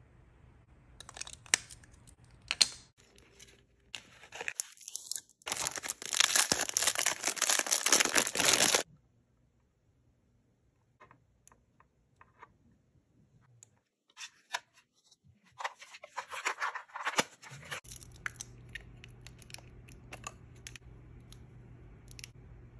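Close-up handling of makeup packaging: a few sharp clicks, then a loud stretch of tearing and crinkling about five seconds in that lasts about three seconds and stops suddenly. After a quiet gap come more clicks and a shorter burst of tearing and crinkling.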